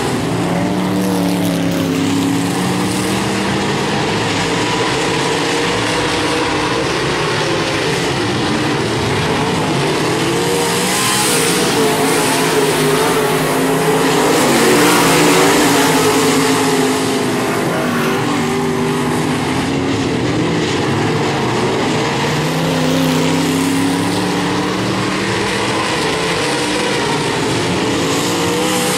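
Several dirt modified race cars' V8 engines running hard around the track, their pitches rising and falling as they accelerate, lift and pass. The sound swells to its loudest about halfway through.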